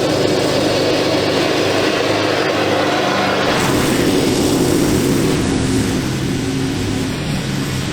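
Riding lawn mower engine running steadily under mowing load, its note changing abruptly about three and a half seconds in.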